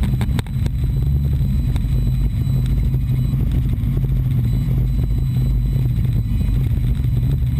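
Robinson piston helicopter heard from inside the cockpit: a steady low drone of engine and rotor, with a few scattered light clicks. The rotor RPM has dropped low and the helicopter is descending fast with heavy vibration.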